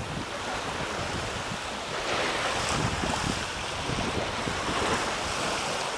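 Small Gulf of Mexico waves lapping and washing onto a sandy beach, with wind rumbling on the microphone. The wash swells a little about two seconds in and again near five seconds.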